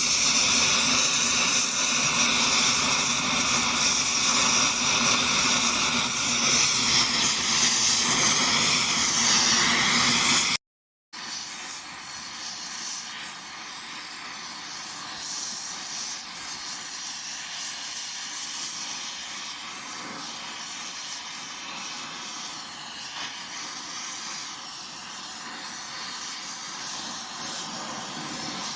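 Blow torch flame hissing steadily while heating steel. About ten seconds in the sound drops out for a moment, then the hiss carries on quieter.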